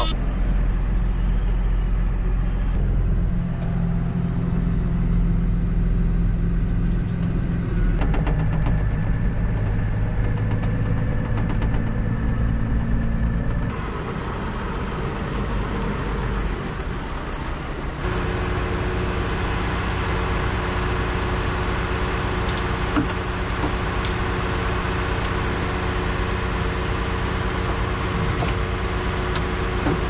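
JCB Fastrac 1125 tractor engine idling just after a cold start, with a horrible beat while the air brakes build pressure. It keeps idling steadily through a few cuts in the recording.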